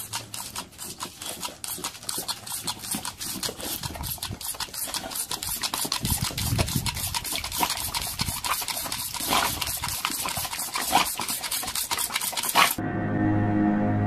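Rapid squirts from a handheld trigger water sprayer, about four a second, each a short hiss of spray. Music begins near the end.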